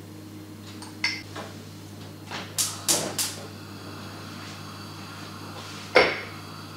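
Kitchen handling sounds: a few light clicks, then a quick run of three sharp clicks about three seconds in, and one loud knock with a short ring about six seconds in, over a steady low hum.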